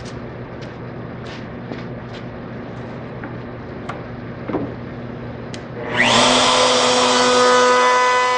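Handheld electric wood router switched on about six seconds in, spinning up quickly to full speed and running with a steady high whine. Before it, a few light knocks.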